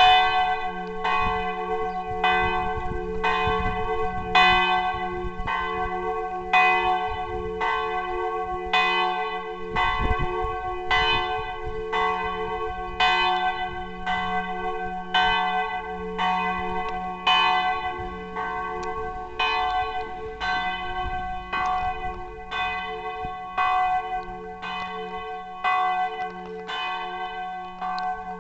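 The campanone, the largest church bell in the tower, ringing a distesa: it swings full circle and its clapper strikes steadily, roughly every half second. The bell's deep hum and ringing partials carry on between the strokes.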